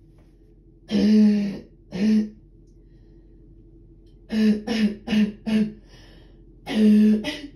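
A person's deep, barking cough in fits: two coughs about a second in, a quick run of four midway, and two more near the end.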